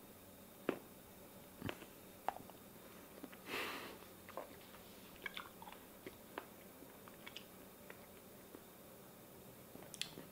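Faint close-up mouth sounds of chewing a raw goat eyeball: sharp clicks and smacks scattered throughout, with a longer rush of noise about three and a half seconds in.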